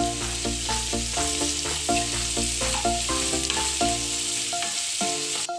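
Chopped onions frying in oil in a non-stick kadai, a steady sizzle, stirred and scraped with a wooden spatula. Background music with a melody of short notes and a bass line plays over it, the bass dropping out about four seconds in.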